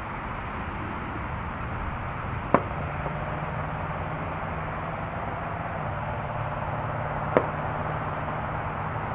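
Boeing 737 jet engines at takeoff thrust, heard from afar as a steady rushing noise during the takeoff roll. Two sharp clicks come about five seconds apart, and a low steady hum sets in after the first.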